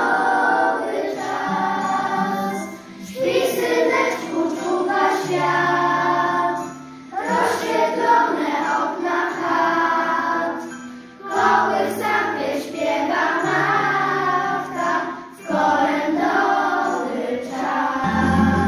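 Children's choir singing a Polish Christmas carol in unison over instrumental accompaniment with steady held bass notes, phrases separated by short breaths.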